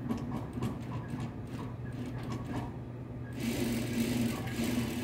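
Juki industrial sewing machine: its motor hums steadily, then at about three and a half seconds in it starts stitching at speed with an even whirr.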